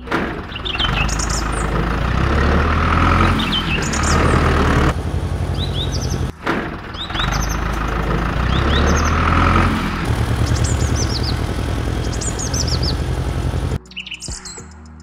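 Tractor engine running steadily, with birds chirping over it; the engine cuts off suddenly near the end.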